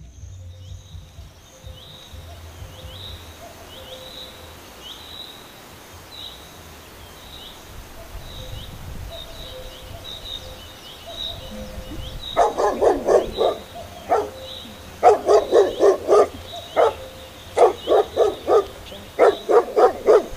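Small birds chirping over and over, then, past the middle, a dog barking in several runs of quick, short barks, which are the loudest sound.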